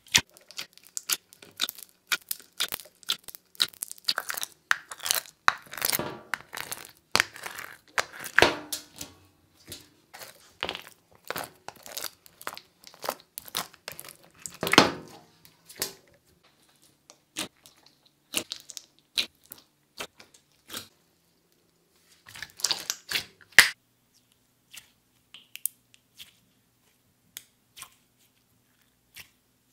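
Bubble-filled clear slime pulled from its tray and squished by hand, giving many small crackling pops and clicks as the trapped air bubbles burst. The pops come thick and fast for the first half, then thin out, with a short flurry about three quarters through.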